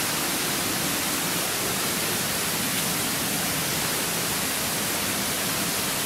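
Waterfall rushing: a steady, even hiss with no breaks.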